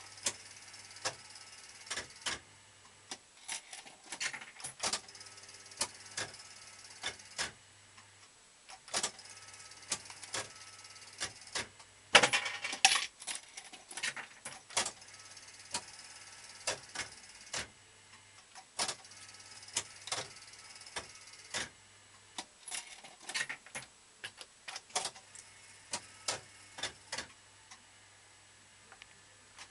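Fruit machine being played: its reels spin and stop with irregular mechanical clicks and clunks from the reel mechanism and buttons, and a louder rattling burst about twelve seconds in. A faint low hum comes and goes underneath.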